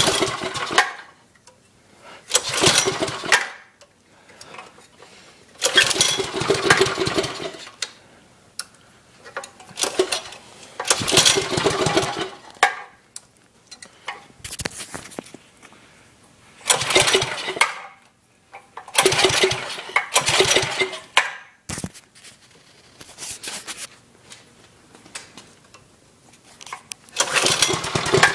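Small engine of an old Bird three-wheeler being cranked in repeated short attempts, about eight bursts a few seconds apart, each dying away within a second or two. The owner wonders whether one of its two kill switches is switched off.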